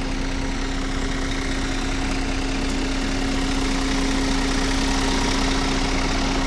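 Semi-truck's diesel engine idling steadily, with a constant hum.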